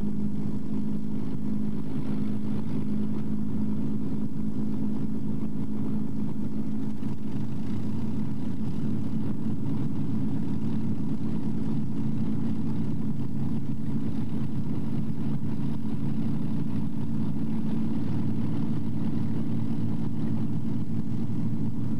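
Avro Lancaster's four-engine piston powerplant, Merlin V12s, running steadily at idle while the bomber stands on the ground. An even, low drone with no rise or fall in pitch.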